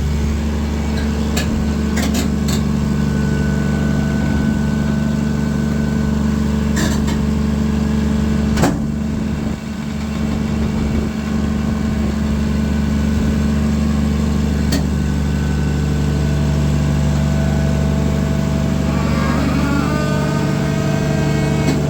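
Caterpillar 336D2 excavator's diesel engine running steadily, with a few sharp knocks while the machine is driven down off a trailer.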